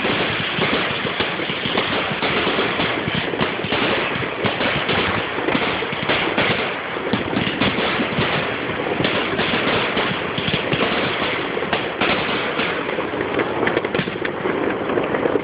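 Fireworks going off in a rapid, unbroken barrage of many bangs and crackles.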